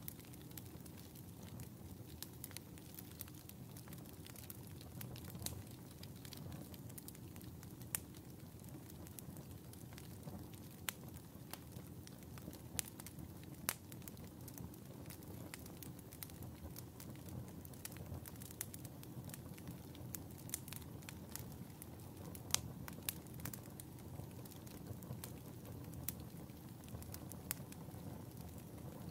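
Wood fire burning in a fireplace: a steady low hiss and rumble with frequent irregular sharp crackles and pops, a few louder snaps among them.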